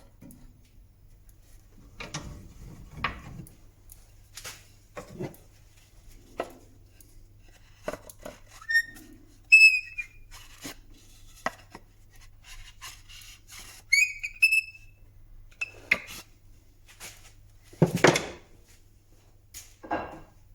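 Scattered knocks and clatter of objects being handled, the loudest about eighteen seconds in, with two brief high whistling chirps about ten and fourteen seconds in.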